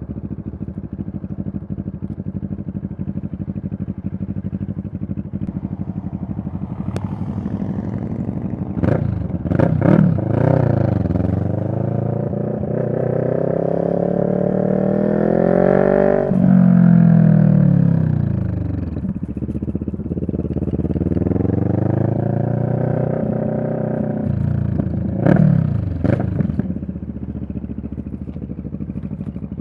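2023 CFMoto 650NK's parallel-twin engine running on a ride. It holds a steady low note, then climbs in pitch as it accelerates, drops suddenly, winds down, and rises again. A few brief sharp sounds come about a third of the way in and again near the end, before it settles back to a steady note.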